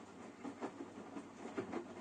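Washing machine running, a steady rumble with irregular light knocks from the tumbling drum.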